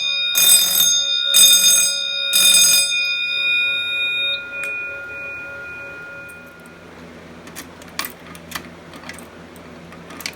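Wheelock 6-inch fire alarm bell striking in march-time code, one stroke a second, three strokes, then the last stroke rings out and fades away as the bell stops. A few faint clicks follow near the end.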